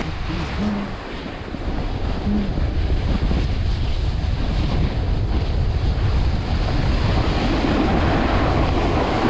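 Snowboard sliding and scraping over hard, tracked piste snow while riding downhill, with wind rushing over the action camera's microphone as a steady noise.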